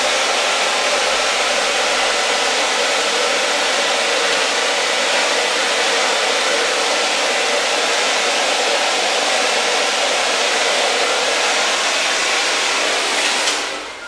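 Handheld hair dryer with a diffuser attachment blowing steadily at a constant pitch, cutting off near the end.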